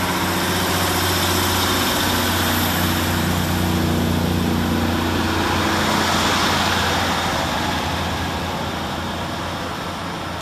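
A Class 150 diesel multiple unit's underfloor Cummins diesel engines working hard as the train pulls away and runs past, a steady low engine note under loud rushing and wheel noise. It is loudest about two-thirds of the way through, then slowly fades as the train draws away.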